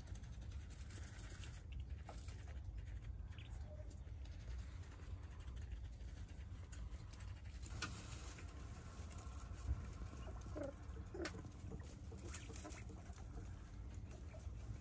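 Japanese quail dust-bathing and jostling in a bowl of sand: faint scratching and pattering of sand and shuffling feathers, with scattered soft clicks. A couple of short faint calls about ten to eleven seconds in.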